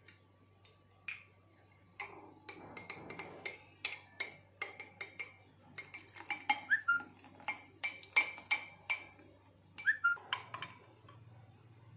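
Metal spoon clinking again and again against a glass tumbler as mango pulp with mint and lemon is stirred: a quick run of light, ringing clinks that starts about two seconds in and stops shortly before the end.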